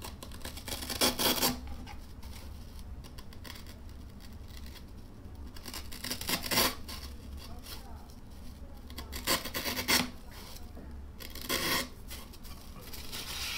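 Snap-off utility knife slicing through rigid polyurethane foam, a handful of short rasping cuts a few seconds apart.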